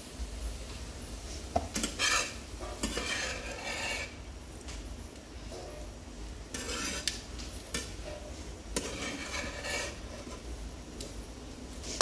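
A spatula stirring and scraping a leafy vegetable stir-fry around an iron pan, in several separate spells of scraping with a few sharp knocks of the spatula against the pan.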